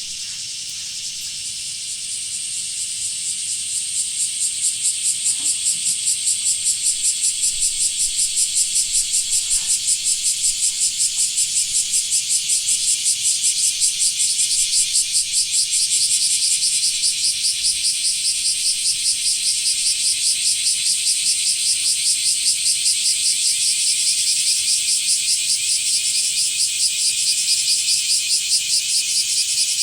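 Blackish cicada (kumazemi) singing its characteristic loud, pulsing call, which swells up over the first few seconds and then beats evenly at several pulses a second.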